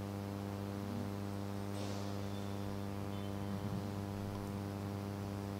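Steady electrical mains hum with a buzzing row of overtones, picked up through the microphone and sound system during a pause with no speech. A faint brief hiss comes about two seconds in.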